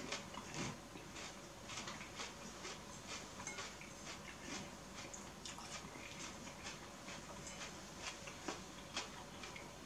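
Faint, close chewing and mouth smacks of someone eating noodles, a few soft clicks a second, with the occasional light tap of a fork in a ceramic bowl.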